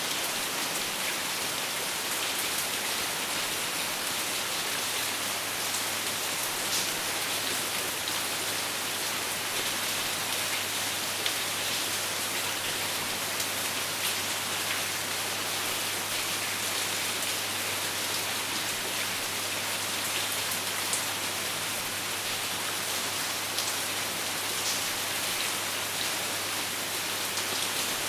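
Steady rain falling, an even hiss with scattered sharper drop ticks and a faint steady low hum underneath.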